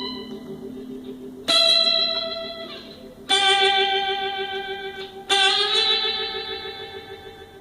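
Instrumental music on guitar, likely through effects: three chords struck about two seconds apart, each ringing out and slowly fading over a steady pulsing low note.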